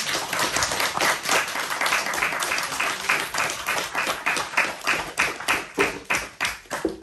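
Small audience applauding by hand: a dense patter of claps that thins out toward the end.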